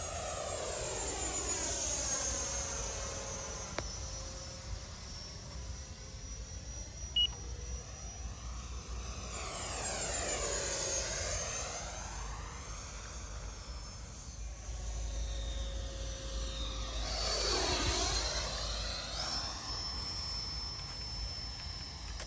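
Electric ducted-fan whine of a Freewing F9F-8 Cougar RC model jet in flight. It grows louder and fades again three times as the jet makes close passes, with small throttle changes in between.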